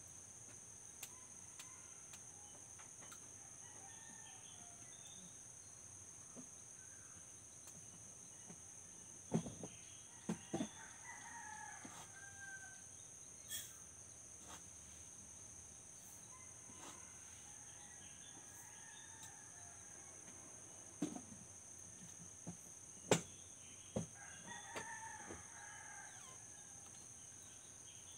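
Roosters crowing faintly twice, about ten seconds in and again near the end, over a steady high-pitched chorus of crickets. A few sharp knocks sound close by.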